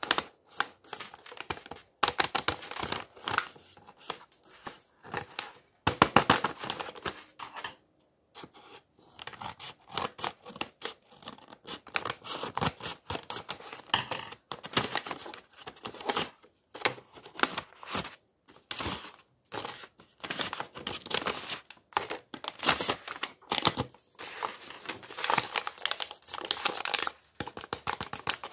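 Sheets of paper being handled, cut with scissors and folded: an irregular run of rustling, crinkling and sharp snips, with a short pause about eight seconds in.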